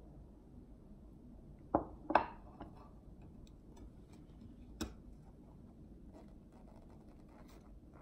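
Tableware being handled: two sharp knocks about two seconds in as a plate is set down against the dishes, a single click near the middle, then faint crackly handling of crispy fried food.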